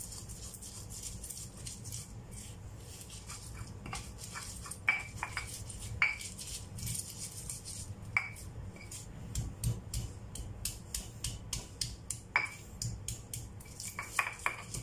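Stone pestle and mortar (ulekan and cobek) pounding chilies, shallots and garlic into spice paste: sharp clacks of stone on stone with a short ring, a few seconds apart at first, then coming quickly near the end.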